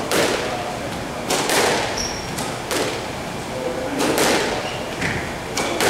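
Squash ball being hit back and forth in a rally: a string of sharp, echoing cracks, about one or two a second, as racquets strike the ball and it hits the court walls. Brief squeaks of shoes on the wooden court floor come between the hits.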